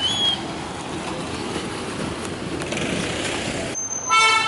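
Steady outdoor engine and vehicle noise, with a short rising chirp right at the start. After a cut near the end, a loud horn toot.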